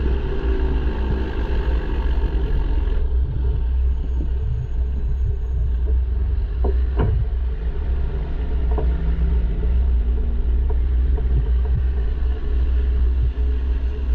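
Straight-piped, fully deleted PACCAR MX13 inline-six diesel in a semi truck running with a steady low rumble. The higher rushing noise drops away about three seconds in, and a couple of short knocks come through near the middle.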